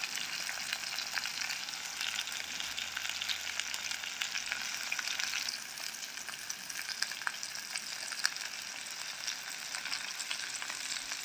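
Stuffed green capsicums frying gently in coconut oil in a clay pot over low heat: a steady sizzle with scattered small crackles and pops, easing slightly about halfway through.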